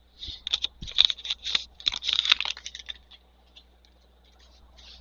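A trading card pack wrapper being torn open and crinkled by hand: a quick run of crackly tearing and rustling for about three seconds, then it quiets.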